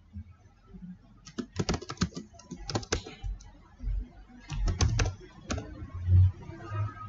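Typing on a computer keyboard: quick runs of key clicks about a second in and again around five seconds in, with a few low thuds near the end.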